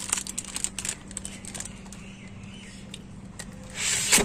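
Sliding glass lid of a chest freezer scraping and rattling along its track as it is pushed wide open, the loudest sound, near the end. Before it come a few light clicks and knocks, over a steady low hum.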